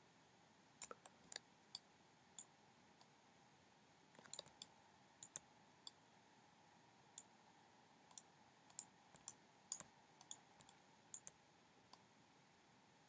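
Faint, irregular clicks of a computer mouse and keyboard, a couple of dozen scattered short clicks, some in quick pairs, over a faint steady background hiss.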